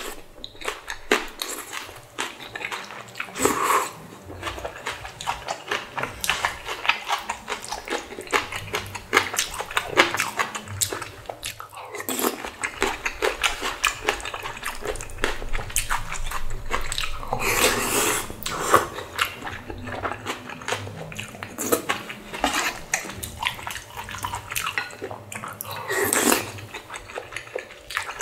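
Close-miked eating sounds: a person chewing and slurping spicy ramen noodles with kimchi. Dense, quick wet clicks and crunches run throughout, with a few longer, louder slurps.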